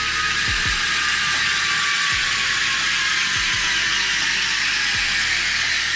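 Small combat robot spinning in place under full steering, its drive motors and gearboxes giving a steady whir with a faint whine that slowly falls in pitch as the steering rate is turned down and the spin slows.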